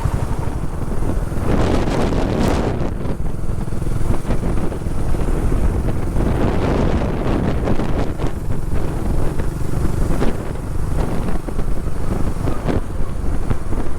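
Heavy wind noise buffeting the microphone on a moving motorcycle, with the motorcycle's engine and road noise underneath.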